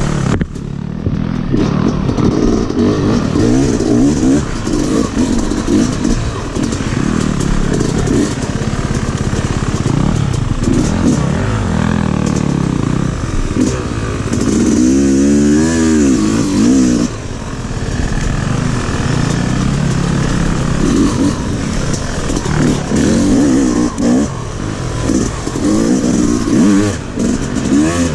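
A 250 dirt bike engine being ridden hard, revving up and down over and over as the throttle is opened and closed, with the bike's chassis clattering underneath. About halfway through comes one clear rev that climbs and then drops.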